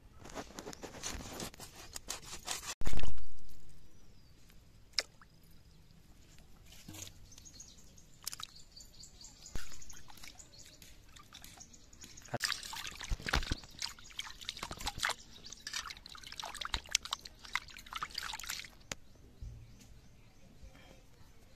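Fish being cut on an upright blade at first, then fish steaks handled and washed by hand in water in a metal pot: splashing, dripping and clattering. A single loud knock comes about three seconds in.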